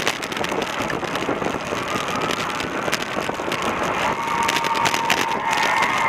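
Wind and road rush on a camera mounted on a racing bicycle, with frequent small rattling knocks. About two seconds in, a sustained high tone joins and holds steady, growing louder toward the end.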